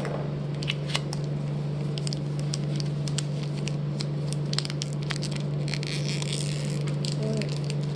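Foil trading-card pack being crinkled and torn open by hand: scattered sharp crackles, with a denser tearing rustle about six seconds in.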